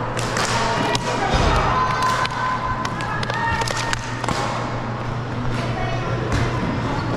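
Hockey cosom (floor hockey) play: irregular sharp knocks and thumps of plastic sticks and ball on the court, several in quick succession, with players' voices in the background over a steady low hum.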